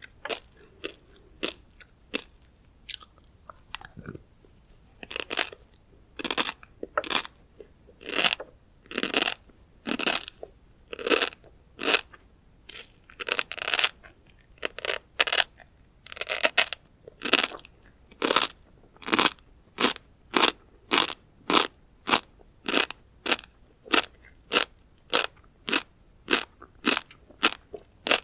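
Close-miked chewing of tobiko (flying fish roe): a steady run of crisp crunches and pops, about one to two a second, sparse and quieter at first, then louder and more regular from about five seconds in.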